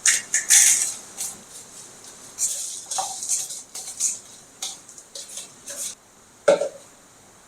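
Dried sea salt crystals being scraped and gathered from an evaporation container: a run of short, crisp scrapes and gritty rattles, with a sharper knock near the end.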